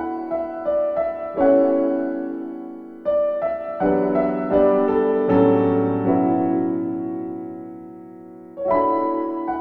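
Background music: a slow piano piece with chords struck every second or two, the notes ringing and fading, and one long low chord dying away near the end before a new chord.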